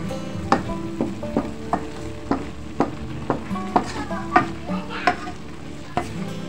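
Wooden spatula stirring a wet minced-meat and vegetable filling in a wok, clicking and scraping against the pan about twice a second over a steady sizzle as the filling cooks down.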